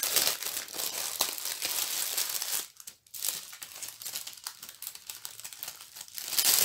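Plastic wrapping crinkling and tearing as it is pulled off a kit by hand, with a brief lull about halfway through.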